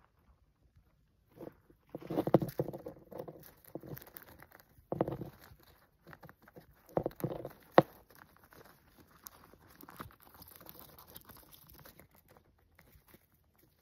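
Hamster gnawing at an unshelled peanut and shuffling in crinkled paper bedding: irregular bursts of crunching and crackling, loudest about two seconds in, then a softer rustle that fades near the end.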